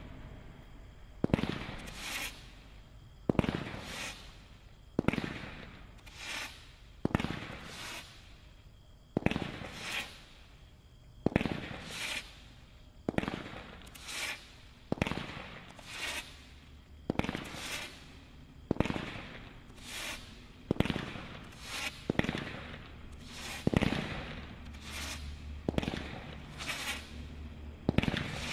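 A 19-shot consumer fireworks cake firing its shots in steady succession: sharp reports about once a second, launches and bursts following one another, each report trailing off before the next.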